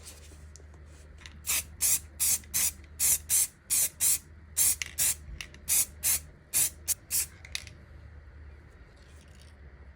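Aerosol can of black spray paint spraying in about fifteen short, quick bursts over some six seconds, then stopping.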